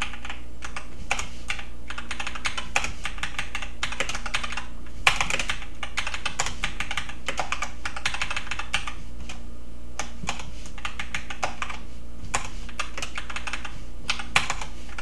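Computer keyboard being typed on in quick runs of keystrokes with short pauses between them, over a faint steady hum.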